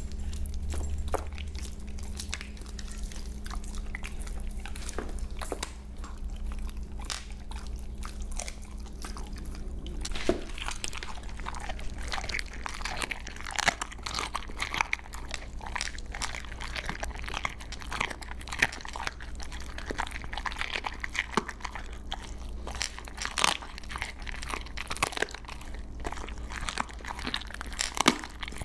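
Siberian huskies chewing raw chicken drumsticks close to the microphone: wet gnawing and many irregular sharp crunches of the bone, coming thicker and louder from about ten seconds in.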